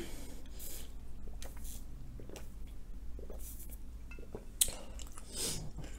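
Quiet sipping of juice through a straw, a few short sips spread out over the time.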